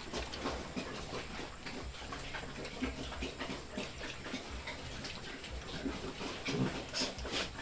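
A pen of weaned piglets feeding together at a trough: a dense, irregular run of short chewing clicks and snuffles with occasional grunts, a few louder clicks about seven seconds in.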